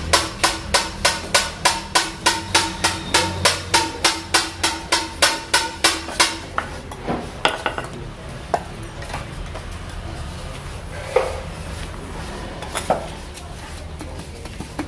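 A hammer striking metal in a quick steady rhythm, about three ringing blows a second, stopping after six or seven seconds. A few scattered single metal knocks follow.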